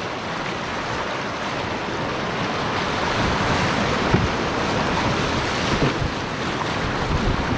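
Whitewater rapids rushing around a canoe as it drops into a shallow, rocky rapid. The rush grows louder as the boat enters the white water, and there is one brief sharp splash about four seconds in.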